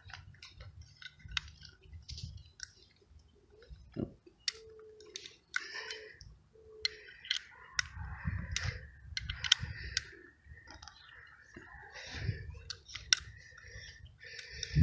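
Hand tap cutting M8 threads into a motorized-bike engine's mount hole, with scattered clicks and creaks as the tap wrench is turned under pressure and three short squeaks near the middle.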